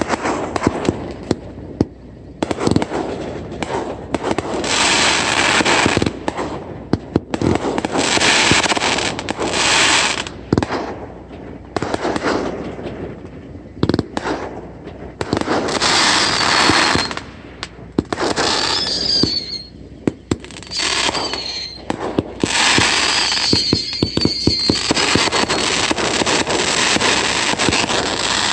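Fireworks display: repeated sharp bangs of bursting shells with stretches of hissing crackle between them, and high warbling whistles in the second half.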